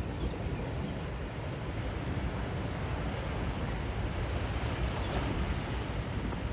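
Wind buffeting the microphone over a steady low rumble of outdoor waterside noise, with a few faint, short high chirps.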